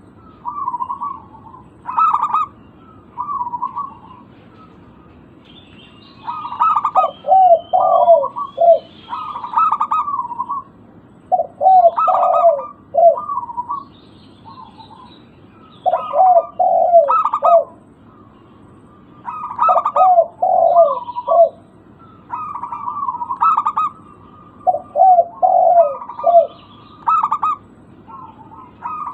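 Zebra doves (perkutut) cooing: repeated phrases of quick, bouncing coo notes every few seconds, with faint higher chirps in between.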